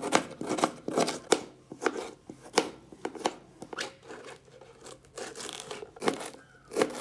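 Kitchen knife chopping red onion and then coriander leaves on a plastic cutting board: quick, uneven chops about two or three a second, a short lull past the middle, then a few more chops near the end.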